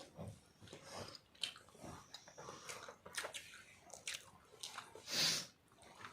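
People chewing boiled eggs, with scattered small wet clicks from mouths. A loud breathy gust comes about five seconds in.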